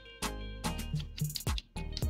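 Background music with drum hits about twice a second and pitched instrument notes, with a brief drop-out near the end.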